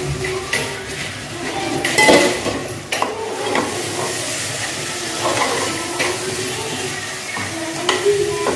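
Washed rice being stirred into fried masala in a pot: a steady sizzle, with a ladle scraping and clinking against the pot several times.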